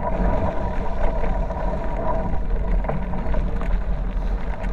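Wind buffeting the microphone of a camera on a moving bicycle: a steady low rumble mixed with road noise from the tyres.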